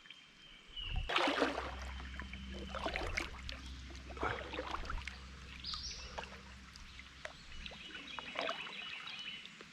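Water trickling and splashing around a kayak hull, with scattered light knocks and taps, over a steady low hum that starts about a second in and fades near the end.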